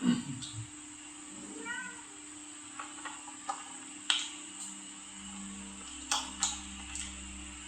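Cat meowing: a loud, low, falling meow at the start and a shorter, higher meow about two seconds in, followed by scattered light clicks and taps.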